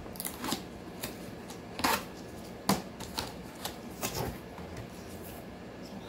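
Cardboard box being opened by hand: a series of short rips and scrapes as the packing tape is pulled off and the flaps are pulled open, the sharpest a little before two seconds in and again near three seconds.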